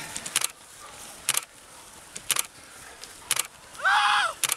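Sharp handclaps about once a second, cheering on passing trail runners, with a loud held high-pitched call near the end.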